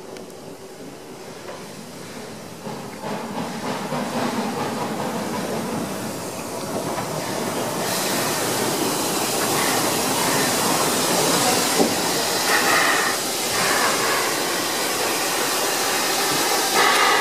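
Harz narrow-gauge DR Class 99.23-24 2-10-2T steam tank locomotive moving slowly up alongside, hissing steam vented low at its cylinders. The hiss grows louder and turns into a strong high hiss about halfway in.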